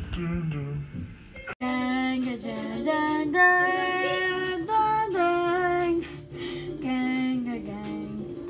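A child's voice singing a wordless logo jingle in held notes that step up and down in pitch. The tune fades, breaks off about one and a half seconds in, then starts again and carries on.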